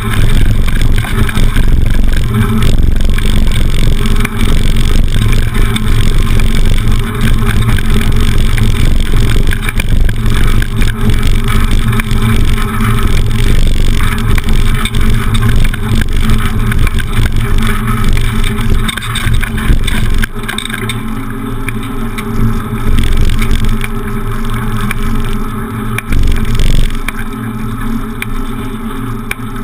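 Beach cruiser bicycle rattling and rumbling loudly over cobblestones, the jolts shaking the handlebar-mounted camera. About twenty seconds in the rumble drops off and turns quieter as the bike rolls onto smooth asphalt.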